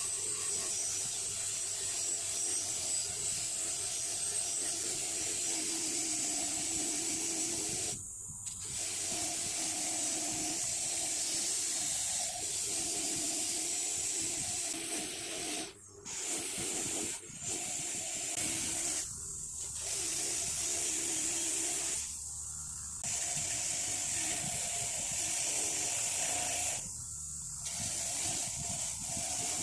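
A motor-driven wire wheel running and scrubbing rust off a steel pipe wrench, a steady hissing rasp over the motor's hum, broken by several short cuts.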